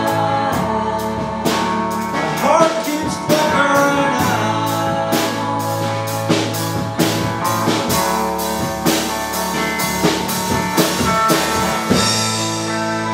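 Rock band playing live: electric guitar, bass, keyboard and a Mapex drum kit with cymbal crashes, in a steady beat. About twelve seconds in the drums stop and the last chord rings on, fading, as the song ends.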